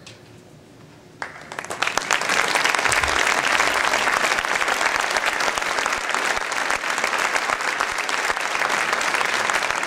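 An audience clapping. The applause breaks out about a second in, swells quickly and then holds steady.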